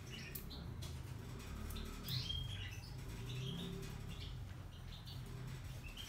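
Hotpoint Ariston Aqualtis washer-dryer running its test programme's drying stage with a low, steady hum. Short high chirps sound over it now and then, the loudest about two seconds in.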